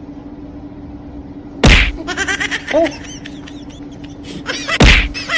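Two loud slaps about three seconds apart, each followed by a run of quick high chirps, over a steady low hum.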